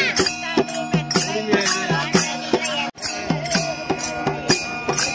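Group devotional singing (bhajan) kept in time by small brass hand cymbals struck about three times a second, with a harmonium holding steady notes beneath the voices. The sound drops out for a moment about three seconds in, then the same singing and cymbal beat go on.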